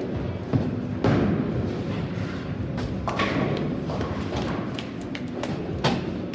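Bowling alley din: bowling balls rolling and thudding on the lanes, with a low continuous rumble and several sharp knocks, the loudest about a second in.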